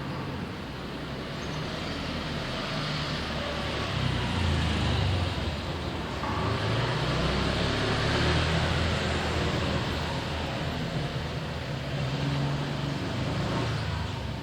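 Road traffic: motor vehicles passing over a steady background of traffic noise, engine sound swelling about four seconds in and again near the end.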